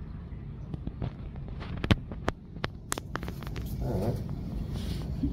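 A handful of sharp clicks and taps, loudest about two seconds in, as a slab of clay is cut freehand with a needle tool on a wooden block. Underneath is a steady low rumble of room noise, and a faint murmur of a voice comes near the end.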